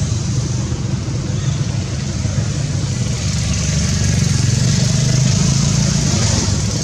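A motor vehicle's engine running steadily: a low, even rumble with a hiss over it, slightly louder in the middle.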